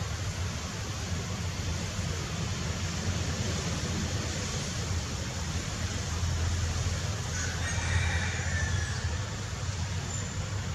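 Steady outdoor background noise with a low rumble, and a brief high-pitched call about three-quarters of the way through.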